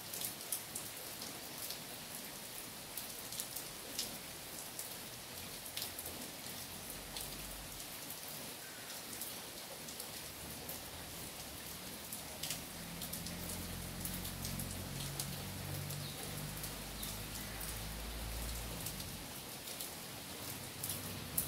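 Steady light rain falling on trees and ground, with scattered sharp drips. A low rumble rises under it a little past halfway and fades near the end.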